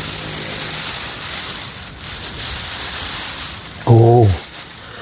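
Dry rice straw and grass rustling and crackling as hands part and press through it. About four seconds in, a brief low hum from a man's voice.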